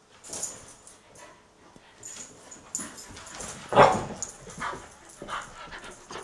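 A rough collie and a Belgian Tervuren puppy playing, with short yips and scuffling. The loudest yip comes about four seconds in.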